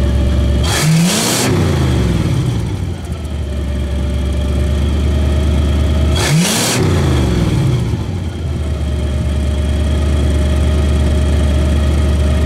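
1966 Chevy Biscayne's 396 big-block V8 idling, heard at the muffler from beneath the car. It is revved twice, about a second in and again about six seconds in, each time climbing quickly and falling back to idle. The blips are meant to blow debris out of the muffler after the exhaust was unplugged.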